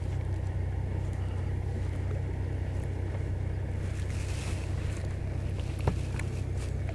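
Small boat motor running steadily with a low, even hum, and a sharp click about six seconds in.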